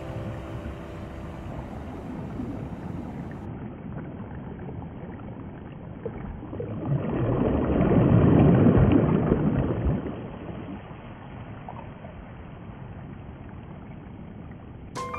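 A rushing, hissing noise that swells to its loudest around eight seconds in and then fades back down.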